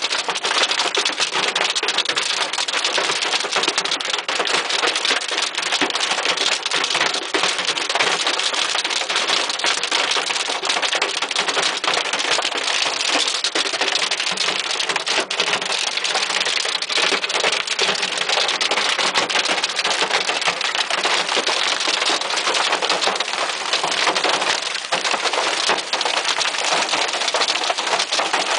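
Half-dollar-size hail with heavy rain pelting down, a dense, steady clatter of countless hard impacts over a roar of rain.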